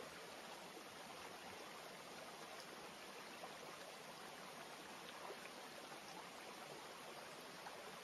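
Faint, steady rushing noise, even in level, with a few tiny ticks scattered through it.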